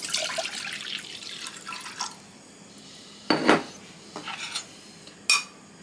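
Dark juice pouring from a glass jar into a stainless steel saucepan, splashing for about a second, followed by a few knocks and clinks of glass and metal, the loudest about three and a half seconds in.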